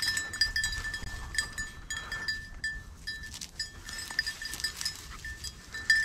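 A bell on a hunting dog's collar jingling in short, irregular rings as the dog moves through the cover.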